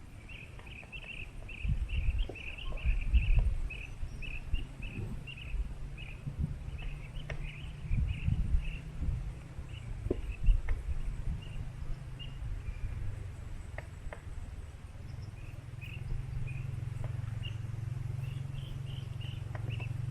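Outdoor ambience: runs of short, high chirps, about three a second, pausing briefly midway. Under them is uneven low rumbling with a few thumps.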